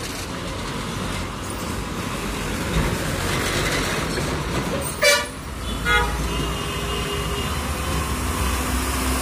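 Street traffic with Tata diesel trucks passing close by, giving a steady engine and road rumble. A vehicle horn toots twice, about five and six seconds in, the first toot the louder.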